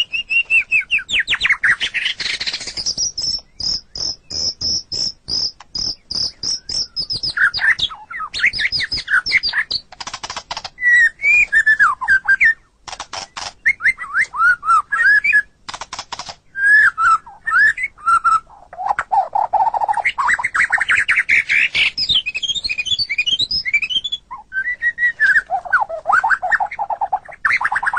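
White-rumped shama (murai batu) singing a long, varied song. It mixes gliding whistled notes, a rapid high trill of repeated notes, and short harsh buzzy notes.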